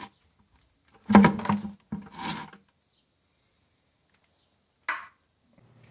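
Two short, loud noises about a second apart, then a fainter short one near the end, as a drain plug is worked out of a tractor's oil case by hand and oil starts to drain into a plastic bucket. The steady pour of oil itself is not heard.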